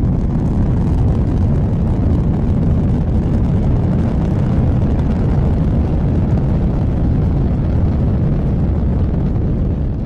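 Sounding rocket's motor at lift-off: a loud, steady rushing roar, heaviest in the low end.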